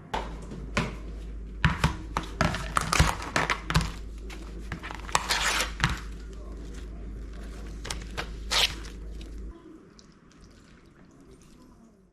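Handling noise from everyday objects: an irregular run of clicks, knocks and rustling, over a steady low hum that stops about nine and a half seconds in.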